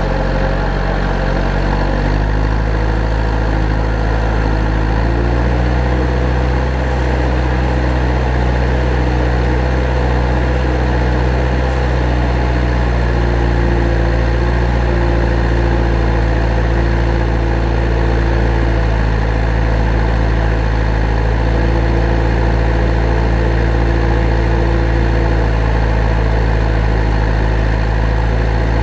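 A vehicle engine idling sound, a steady low drone with no change in speed, with a fainter higher hum that comes and goes.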